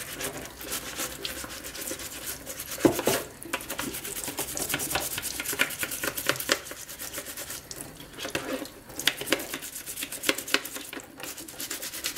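Toothbrush bristles scrubbing a plastic dishwasher filter in quick back-and-forth strokes under a running tap. There is one louder knock about three seconds in.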